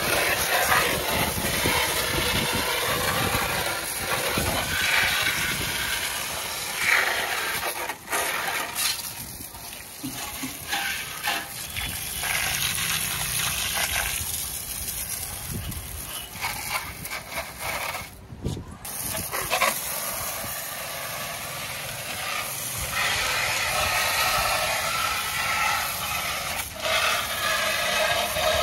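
Water jet hissing and splashing from a homemade electric pressure washer's spray gun, rising and falling unevenly. It cuts out briefly about two-thirds of the way through.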